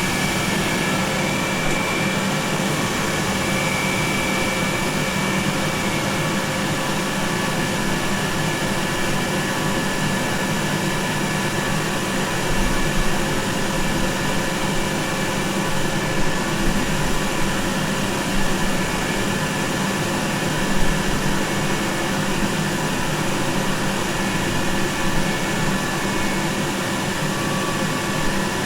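Commercial hand dryer running steadily: a continuous rush of blown air over a low motor hum.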